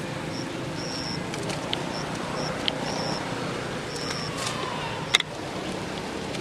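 Outdoor ambience: a steady background hum with short, high chirps repeating every half second or so for the first four seconds. A sharp click about five seconds in is the loudest moment.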